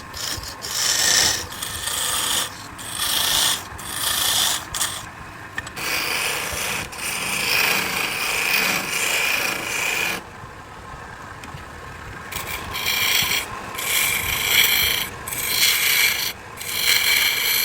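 A tool or sandpaper rubbing against tree-root wood spinning on a lathe, in repeated strokes of about half a second to a second each. There is a quieter stretch about ten seconds in.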